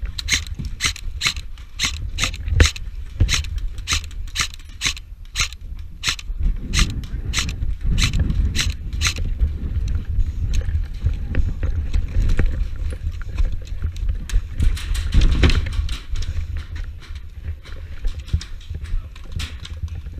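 Hurried footsteps crunching on snow and ice, about three a second, stopping about nine seconds in, over a low rumble of wind and handling noise on a helmet-mounted action camera.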